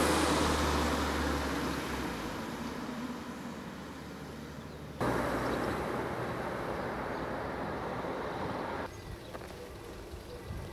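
A car drives past on the road, its tyre and engine noise loudest at first and fading away over about five seconds. After that comes steady outdoor background noise that switches abruptly to a different level twice.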